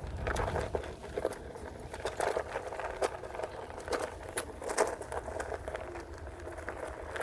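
Onewheel Pint X electric board rolling along a dirt trail: irregular clicks and crackles from the tyre over gravel and twigs, over a steady low rumble.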